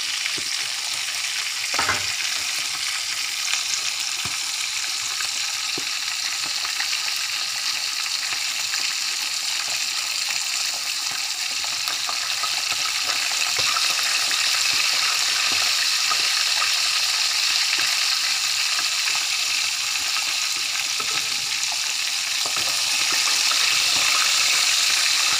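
A whole fish shallow-frying in a little oil in a nonstick pan: a steady sizzle that grows louder past the middle, with a few faint pops.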